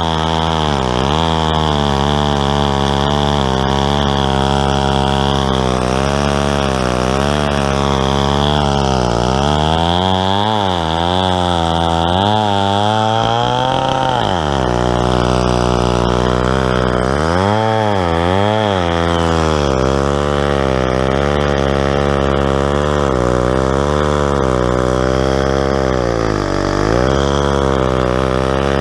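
Stihl 090 two-stroke chainsaw, untuned, running under load through a log on a homemade chainsaw mill. Its pitch keeps sagging and recovering as the cut loads it, dipping deepest about halfway through and again a few seconds later.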